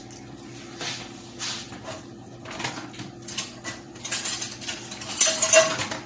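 Kitchen utensils clinking and scraping against dishes in a string of irregular knocks about a second apart, busiest and loudest in the last two seconds.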